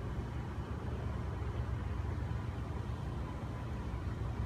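Wind blowing against the phone's microphone ahead of a thunderstorm, a steady low rumble.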